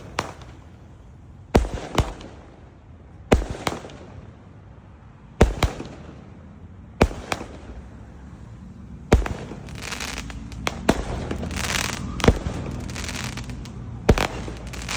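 A 16-shot consumer fireworks cake firing shot after shot, a sharp bang every second and a half to two seconds, some of them doubled. From about ten seconds in, crackling shells fill the gaps between the bangs.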